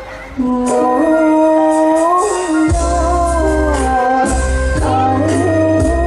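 A girl singing a Thai luk thung song into a microphone over amplified backing music with bass and keyboard; her voice comes in about half a second in after a brief lull, with a wavering, ornamented melody.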